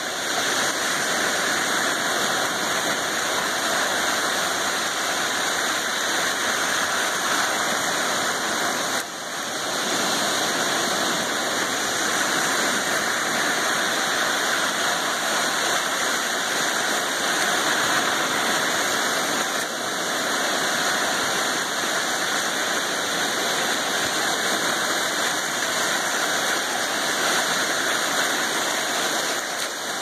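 Gentle sea waves washing in over sandy shallows: a steady rush of water that dips briefly about nine seconds in.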